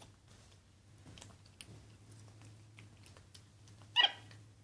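Capuchin monkey chewing a cupcake: faint, irregular small clicks of eating. About four seconds in, one short, high squeaky chirp that falls in pitch.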